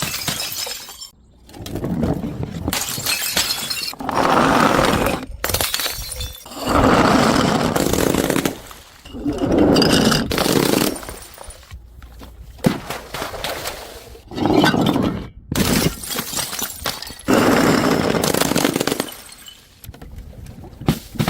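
Glass bottles smashing one after another, a series of loud shattering crashes with crunching and tinkling glass between them.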